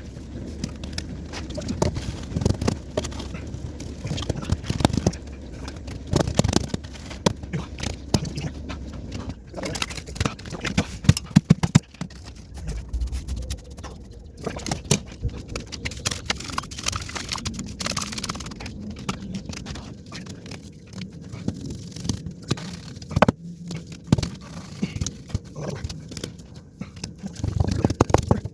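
Irregular scraping with scattered knocks and clicks, as of a hand tool worked across wet concrete.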